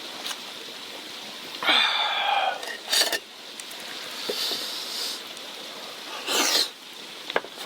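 A person's breathy exhale and sniff, with a sharp click between them, over a steady background hiss.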